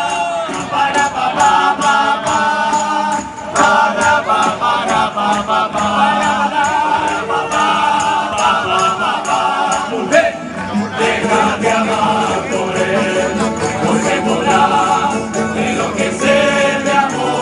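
A Spanish student tuna playing live: strummed guitars and bandurrias with a jingling tambourine (pandereta), and the group's voices singing together.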